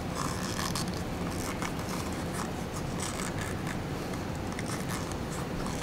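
Hands working a rubber boot over a small tag light housing: faint rubbing and scattered light clicks over a steady low hum.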